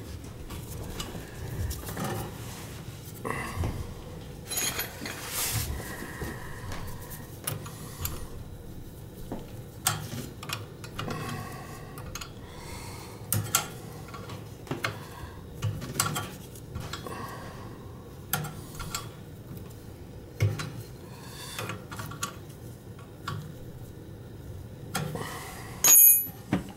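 Hand tools and metal fittings clinking and knocking at a gas boiler's gas valve and manometer connection, in scattered taps with a sharp louder knock near the end, over a steady low rumble.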